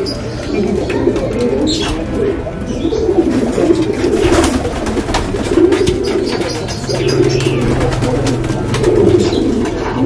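Domestic pigeons cooing over and over, a run of low rolling coos: courtship cooing as a young pigeon begins to drive.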